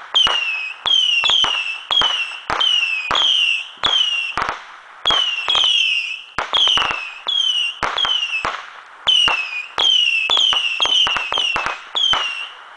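A Saturn missile battery firing in quick succession: a rapid string of small whistling rockets, about two a second, each a short whistle falling in pitch with sharp cracks as they launch and pop.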